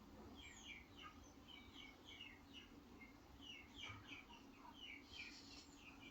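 Faint, quick bird chirps repeating irregularly over a steady low hum.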